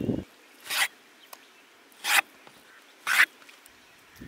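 Three short rasping scrapes, spaced about a second apart: a knife drawn through raw chicken breast and across a bamboo cutting board.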